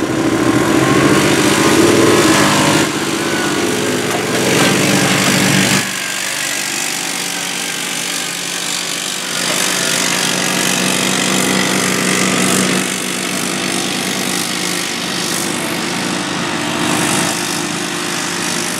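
Side-by-side UTV engine running hard under load as it pulls a weight-transfer sled, held at steady high revs. About six seconds in it becomes fainter and thinner.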